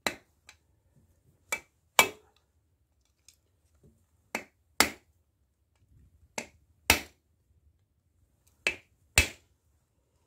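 Claw hammer tapping the end of a screwdriver to seat a wheel bearing's retaining clip in its groove in a steering knuckle: sharp metallic taps, mostly in pairs about half a second apart, every couple of seconds.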